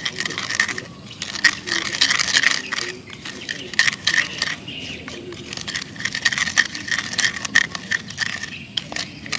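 Wooden pestle grinding and scraping inside a half-coconut-shell bowl, crushing chillies, tomato and spring onion in tamarind sauce. It makes a run of quick, irregular scraping and crushing strokes.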